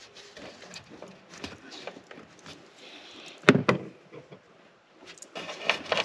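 Scattered clicks and knocks of plastic intake tubing and a rubber coupler being handled and a screwdriver working a hose clamp, with one loud knock about three and a half seconds in.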